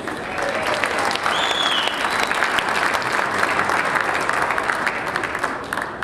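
Audience applauding, the dense patter of many people clapping, with one short high-pitched note cutting through about a second and a half in.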